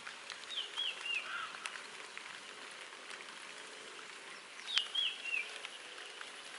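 A bird calling twice, each call a quick run of short falling chirps, about half a second in and again near five seconds, over a steady outdoor hiss.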